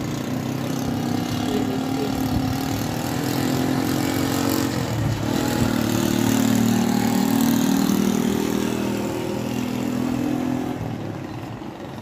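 A motor vehicle's engine passing by, growing louder to a peak about two-thirds of the way through, then fading away near the end.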